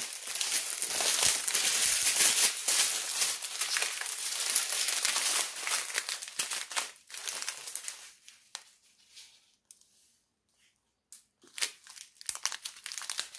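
Small clear plastic bags of diamond-painting drills crinkling as they are handled, dense for the first several seconds, then thinning out to a short near-quiet stretch about two-thirds through before the crinkling picks up again near the end.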